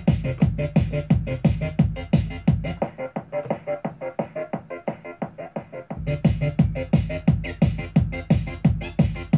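Live techno from a Roland TR-8 drum machine and synthesizers: a steady four-on-the-floor kick at about two beats a second with hi-hats under a repeating synth line. About 3 seconds in, the kick and hi-hats drop out, leaving the synth pattern alone, and they come back in about 3 seconds later.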